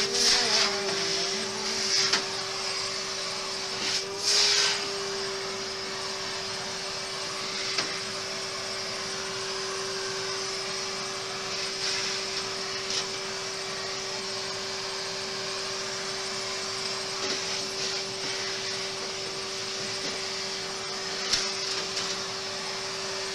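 Vacuum cleaner running steadily, its hose nozzle sucking dust out of the inside of a desktop PC case. There are brief louder rushes near the start and about four seconds in.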